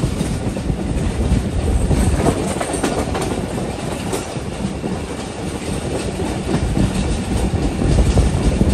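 Passenger train running along the track: a steady heavy rumble with the wheels clacking over rail joints.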